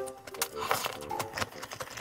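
Slurping and chewing rice noodles from a bowl of pho: several short wet slurps and mouth clicks, close to the microphone.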